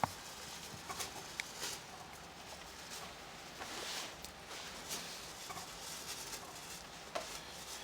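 Light rain falling, a steady soft hiss with scattered faint taps of drops, and a little wind.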